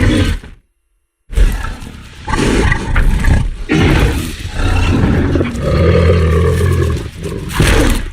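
Film sound effect of a Giganotosaurus roaring: a short growl, then after a brief pause a long, deep roar lasting about seven seconds.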